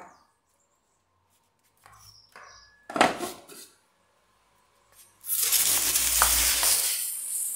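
A sharp knock about three seconds in, then about two seconds of loud rustling and scraping close by as the homemade compost mix for topping up the pot is handled.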